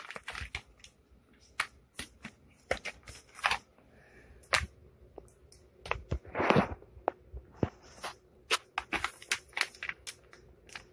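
Hands handling small plastic tools and their case: irregular clicks, taps and rustles, with one longer rustle about six and a half seconds in.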